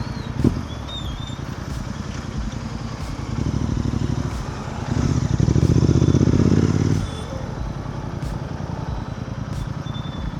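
Royal Enfield Continental GT 650's 648 cc parallel-twin engine running on the move, with a brief thump about half a second in. The engine note grows louder for about two seconds past the middle, then drops back.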